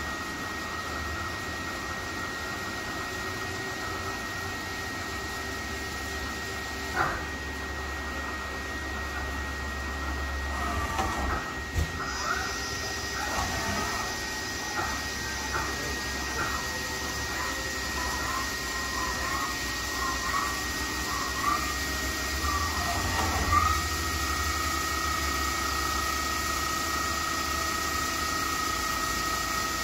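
Okuma LB35 II CNC lathe running under power with a steady mechanical hum. There is a sharp click about 7 seconds in, then a run of clicks and short whirs from about 10 to 24 seconds in as the tool turret moves, after which a steady higher whine sets in.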